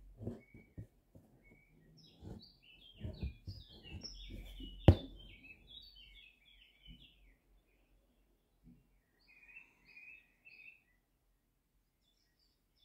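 Needle and embroidery thread rasping as they are drawn through fabric stretched in an embroidery hoop, in a run of short pulls over the first five seconds, with one sharp click about five seconds in. Small birds chirp throughout.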